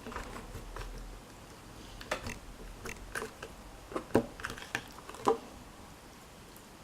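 A fork stirring a sticky mix of white glue and laundry detergent in a container into slime, giving faint, irregular clicking taps and squelches, mostly in the middle seconds.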